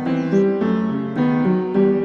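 Background music: a piano or electric-piano melody, new notes struck two to three times a second.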